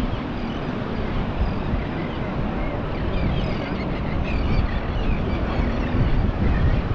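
Vehicle driving on a beach, its steady road rumble mixed with heavy wind noise.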